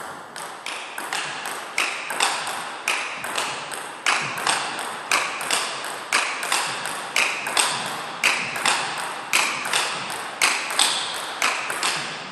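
Table tennis backhand topspin rally: the ball clicks sharply off the bats and the table in an even, fast rhythm, several clicks a second, each with a short echo. One of the bats is a Butterfly Primorac Carbon blade with Donic Acuda S3 rubber.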